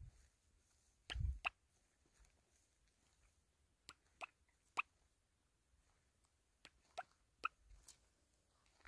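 Faint footsteps crunching on a dirt track, a scatter of short sharp steps with a heavier thud about a second in.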